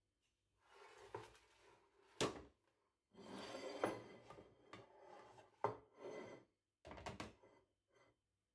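A metal baking tray slid across a wooden tabletop and a ceramic dinner plate set down and shifted into place: scraping and rubbing with several sharp knocks, the loudest about two seconds in.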